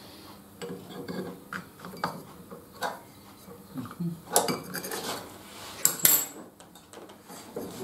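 Metal clinks and knocks from handling and adjusting the parts of a saw blade sharpening grinder while its motor is off, a separate knock every second or so, with the sharpest clatter about six seconds in.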